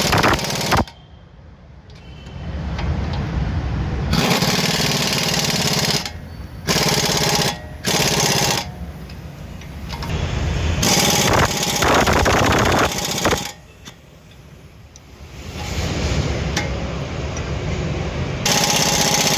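Impact wrench rattling in repeated bursts of a few seconds each, with short pauses between them, as suspension bolts are run in and tightened.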